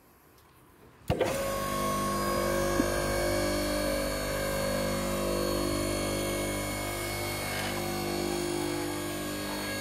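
Homemade sawdust briquette press switched on about a second in, its electric motor and pump starting suddenly and then running with a steady hum.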